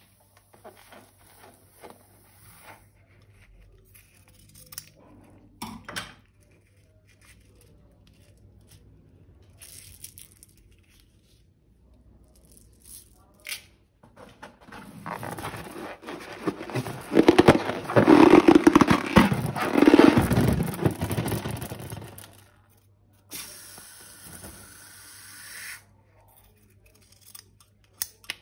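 Rubber balloons and slime being handled: small sticky crackles, then a dense stretch of loud rubbing and scraping crackle in the middle. Near the end come a few sharp scissor snips as a balloon's rubber is cut.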